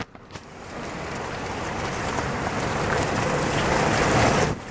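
Car driving along a wet, muddy dirt road, heard through an open side window: a steady rush of tyre and road noise that builds over the first few seconds and drops off near the end.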